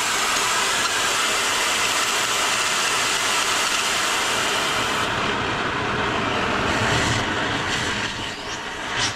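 Handheld gas torch burning with a steady hissing rush, heating a rust-seized screw in a cast governor housing to free it. The rush eases a little near the end.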